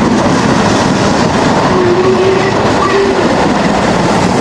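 Steam locomotive hauling a train of coaches past at speed, a steady loud rush of exhaust mixed with the clatter of wheels on the rails.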